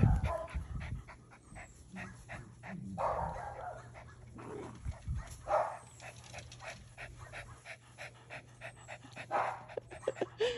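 Puppies giving short yips and whimpers, over many small scattered clicks and rustles.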